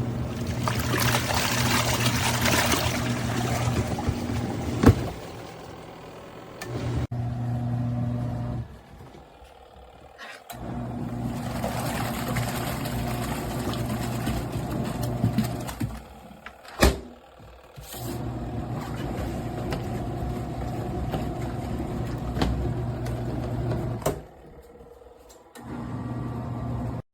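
Elevon twin-tub portable washing machine's wash motor humming as it agitates water in the tub, cutting out for a second or two every few seconds and starting again. A couple of sharp clicks fall in between.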